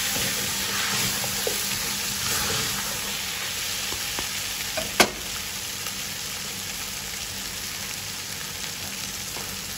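Chicken pieces sizzling in a pot as they are stirred with a wooden spoon, with a steady hiss throughout. One sharp knock comes about halfway through.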